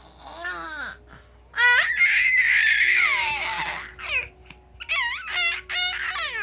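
A baby's high-pitched squealing vocalizations: one long, loud squeal of about two and a half seconds, then several short squeals near the end.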